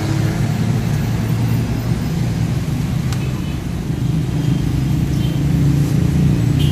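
A steady low rumble of street-stall background noise, with faint voices in the distance.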